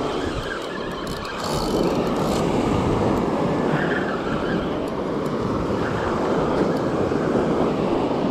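Steady rushing of wind on the microphone mixed with waves breaking and washing on the beach.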